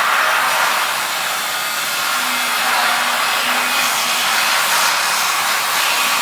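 GS-100 wire-stripping machine running, its motor making a steady, loud whirring noise as it strips copper wire.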